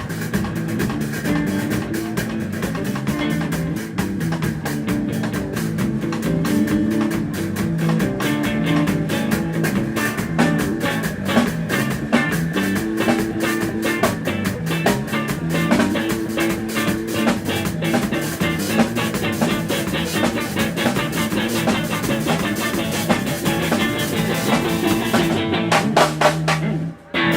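Live band playing rock with drum kit, electric guitar and a moving bass line. Near the end the band stops abruptly for a moment, then comes straight back in.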